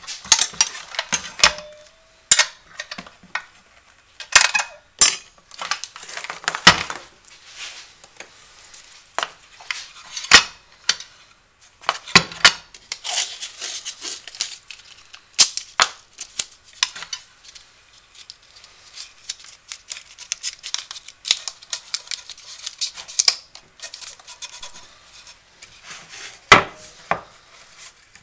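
Clicks, knocks and rattles of a circular saw and wooden jig parts being handled on a workbench, with painter's tape being pulled and wrapped; the saw is not running. The clatter is irregular, with two sharper knocks, one about ten seconds in and one near the end.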